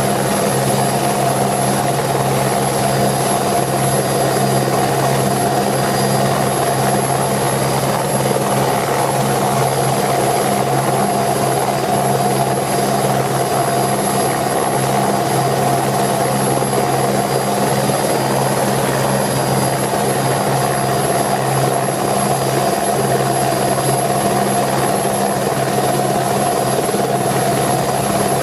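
Eurocopter AS355 F2 TwinStar helicopter running at a steady, unchanging pitch: twin turboshaft engines and rotor, with a thin high whine.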